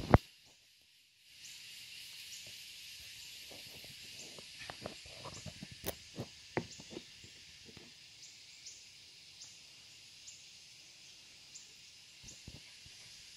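Steady high-pitched drone of forest insects, with a faint chirp repeating about once a second. Near the middle comes a run of short knocks and rustles from the camera being handled.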